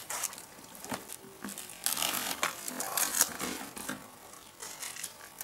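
Rustling, scraping and a string of light knocks as objects are picked up and handled close to the microphone, busiest in the middle of the stretch.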